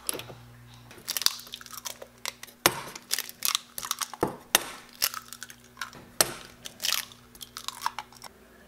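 Eggs being cracked one after another against a stainless steel bowl: irregular sharp taps and shell crunches. A stove knob clicks as it is turned at the very start, and a low steady hum runs underneath.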